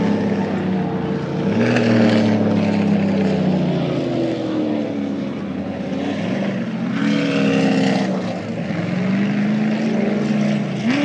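Off-road race vehicle engines heard across water, their pitch rising and falling several times as they accelerate and shift.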